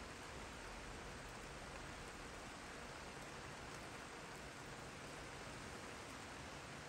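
Rain falling steadily: a faint, even hiss with no separate drops or knocks standing out.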